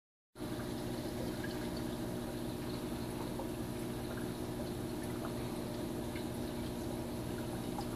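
Aquarium water circulation: a steady low pump hum with water trickling and scattered small drips.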